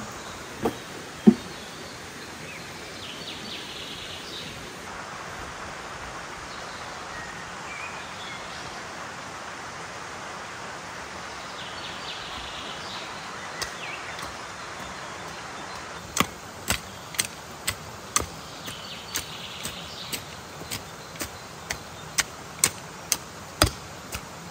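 A small folding shovel striking into stony soil while digging, a run of sharp chops about two a second starting about two-thirds of the way in. Under it a steady rush of a stream, with a few faint bird chirps.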